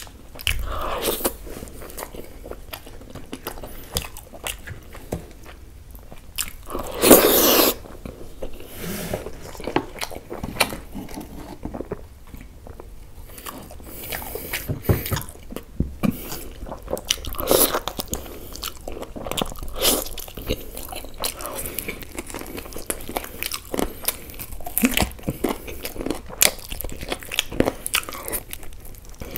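Close-miked eating sounds of chicken in curry gravy being eaten by hand: irregular chewing, biting and wet mouth smacks as meat is pulled off the bone, with one louder, longer noise about seven seconds in.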